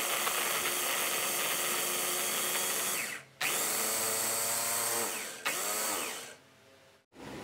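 Electric mini food chopper (Matsusho) whirring in pulses as its blades chop garlic, shallots, chili and kencur into spice paste: a run of about three seconds, a brief stop, a second run, then a short final burst, the motor winding down with a falling whine after each release.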